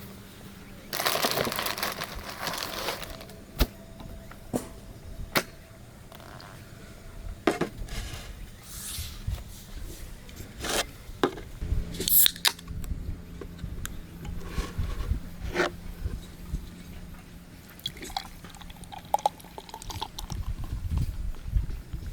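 Camp cooking sounds: liquid poured for about two seconds near the start, then scattered knocks and clinks of cookware and utensils being handled.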